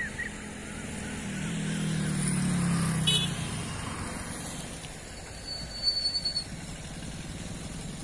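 Street traffic: a motor vehicle's engine hum swells and passes about two to three seconds in. Near the middle a brief high-pitched tone comes with a few quick loud pulses.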